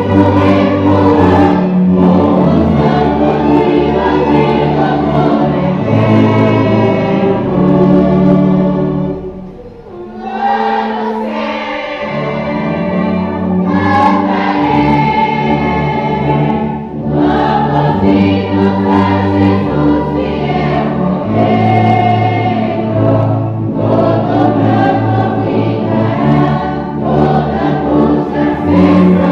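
A congregation singing a hymn together with a church orchestra, tubas among the brass, playing sustained chords in long phrases; the sound drops briefly about nine seconds in at a break between phrases, then swells back up.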